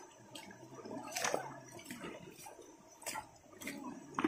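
River water splashing and dripping in irregular short splashes, the loudest a little over a second in.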